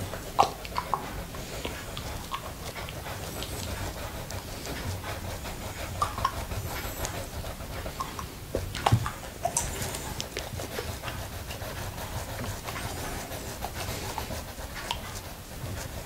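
Close-miked wet licking and mouth sounds on a small glass plate coated with Frizzy Pazzy popping candy, with scattered sharp clicks and pops.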